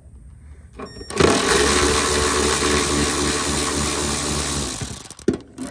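Cordless electric ratchet running for about three and a half seconds as it backs out a 10 mm bolt, starting about a second in and winding down near the end, followed by a couple of sharp clicks.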